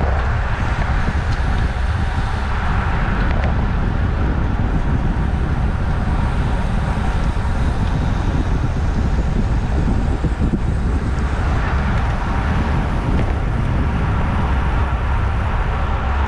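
Steady wind rush on the camera microphone and tyre noise on asphalt from a road bicycle ridden at racing speed, about 22–25 mph, in a pack of cyclists.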